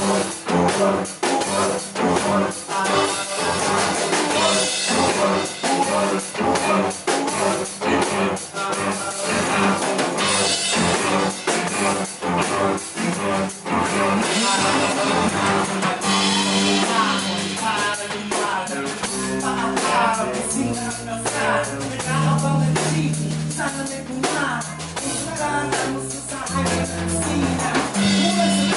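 Live rock band playing: electric guitars, bass and drum kit with a man singing. About two-thirds of the way through, the drums ease off, leaving long, held bass notes under the guitar and voice.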